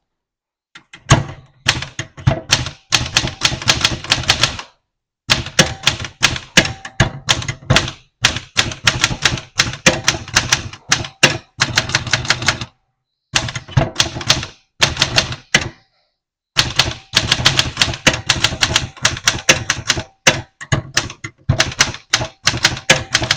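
Olivetti Linea 98 manual typewriter being typed on: quick runs of key strikes, broken by short pauses every few seconds.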